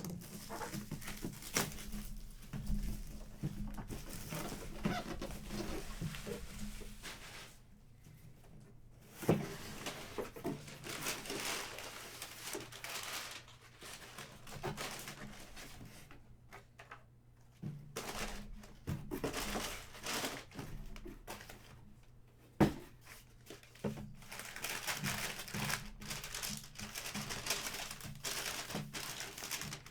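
Packaging being handled and opened: crinkling plastic and paper, tearing, and small clicks of cardboard, with a couple of sharp knocks about nine seconds in and again past the twenty-second mark.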